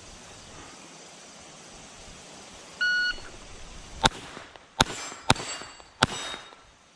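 Shot timer's start beep, a short steady tone, followed about a second later by four pistol shots fired in quick succession over about two seconds.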